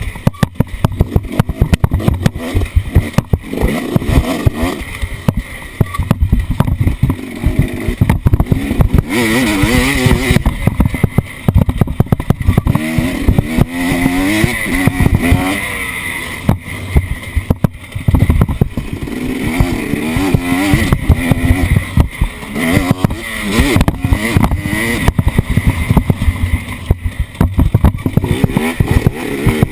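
Off-road vehicle engine revving up and down repeatedly as it is driven, with frequent knocks and rattles throughout.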